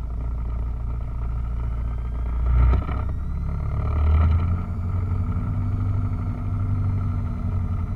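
Piper PA-28 Cherokee's piston engine running at low taxi power. About three to four seconds in the throttle comes up, the engine note rises, and it then holds steady as the plane starts to taxi.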